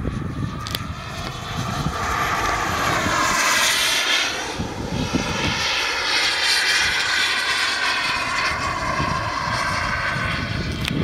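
JetCat Titan turbine of a radio-controlled model jet flying past: a loud rushing jet whoosh with a wavering, phasing sheen. It swells about three seconds in, dips briefly, and swells again.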